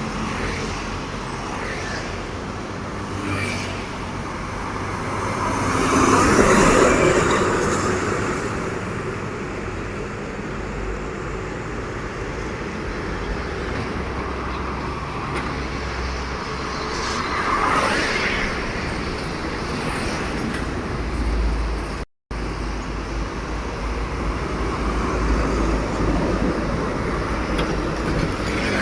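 Road traffic passing close by: one vehicle swells up and fades about six to eight seconds in, and another passes around eighteen seconds in. The sound cuts out completely for a moment about twenty-two seconds in.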